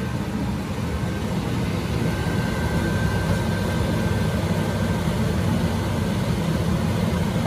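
A steady, low mechanical rumble with a fainter hiss above it, holding at an even level throughout.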